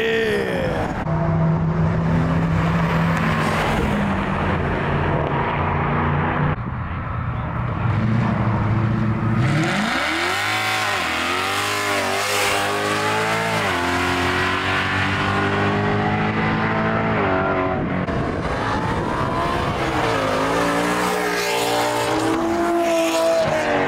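Performance cars accelerating hard past one after another, engines revving up with repeated rises and drops in pitch as they shift gears.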